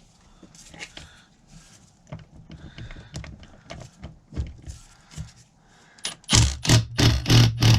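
Irregular small metallic clicks, clinks and knocks of transfer-case parts being handled and taken apart. About six seconds in, louder music with a strong steady beat starts and takes over.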